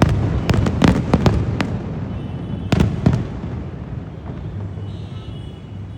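Fireworks going off: a quick run of sharp bangs in the first second and a half, two more bangs about halfway through, then a low rumble that slowly fades.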